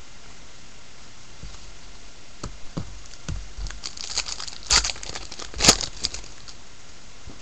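Foil wrapper of a 2009 Bowman Draft Picks baseball card pack being torn open and crinkled, with two loud rips near the end. Before it come a few light clicks and knocks.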